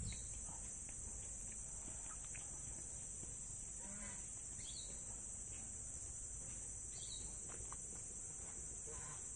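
Steady high-pitched buzz of an insect chorus, with a few short falling chirps over it.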